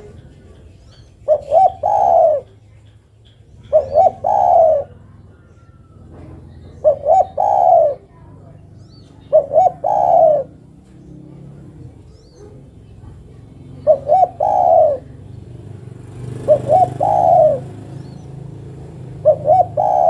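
Spotted dove cooing: seven calls spaced about two and a half to three seconds apart, each two quick short notes followed by a longer drawn-out note. The uploader presents it as a female calling to a male.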